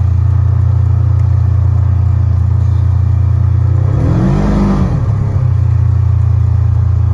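Gasoline golf cart engine running with a steady low drone. About four seconds in, its pitch rises and falls once as it speeds up and eases off.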